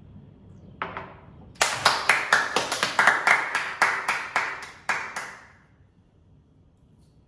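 A single tap about a second in, then a run of about a dozen rhythmic hand claps, three to four a second, stopping about five seconds in.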